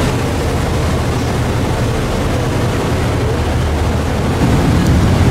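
Engines of a high-speed Thames river boat running at cruising speed: a steady low drone under the rush of its churning wake, growing a little louder near the end.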